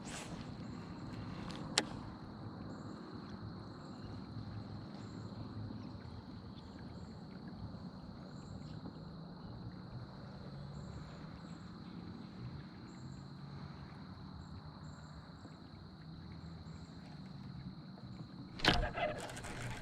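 Steady low outdoor background rumble on a river, with a faint steady high-pitched tone over it. A single sharp click comes about two seconds in, and a brief knock near the end.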